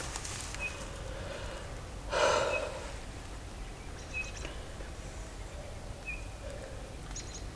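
A single loud, breathy exhale close to the microphone about two seconds in, over a low steady rumble of wind noise, with a few faint short high chirps scattered through.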